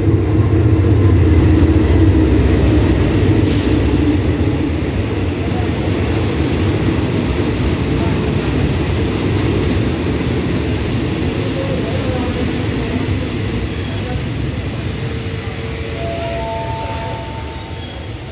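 Diesel-hauled passenger train pulling in alongside the platform. The locomotive's low engine rumble is loudest at the start, then the carriages roll past, and about two-thirds of the way in a steady high squeal sets in as the train slows to a stop.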